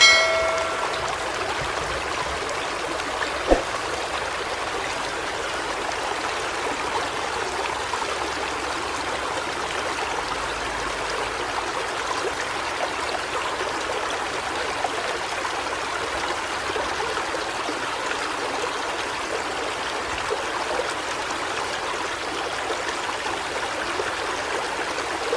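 Floodwater rushing in a steady, unbroken flow, with a single sharp click about three and a half seconds in.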